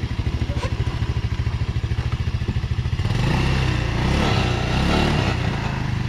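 ATV engines idling with a steady low putter; about three seconds in, an ATV engine revs up louder as it pulls away.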